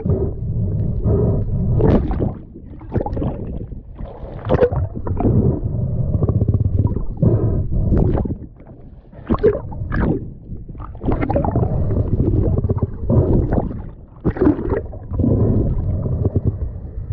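Muffled underwater rumbling and gurgling of water moving around a submerged camera housing, swelling and dipping irregularly, with a few brief sharper knocks.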